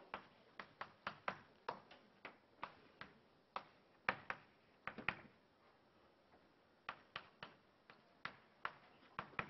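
Chalk tapping and scraping on a chalkboard while a math expression is written, a quick irregular run of short taps with a lull of about a second and a half just past the middle.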